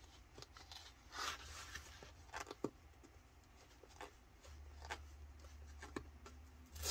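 Faint, scattered clicks and scrapes of a blade working through packaging tape, with a short rustle of the package about a second in.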